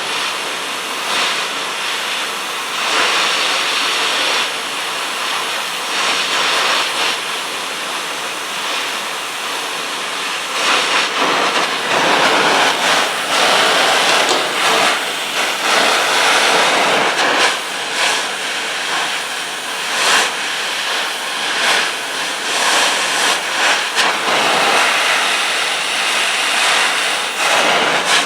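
Hand-held gas torch burning with a steady hissing flame, heating a pair of linesman pliers so the metal can be bent. The hiss swells and wavers, growing louder about halfway through.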